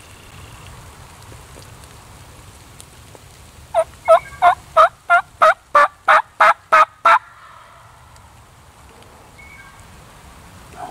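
Wild turkey yelping: a loud run of about eleven evenly spaced yelps, about three a second, starting about four seconds in and lasting about three and a half seconds.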